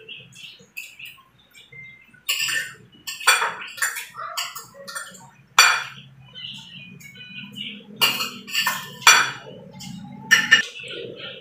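Metal spoon and fork clinking and scraping against a ceramic plate while cutting up food, with about seven sharp clinks spread through.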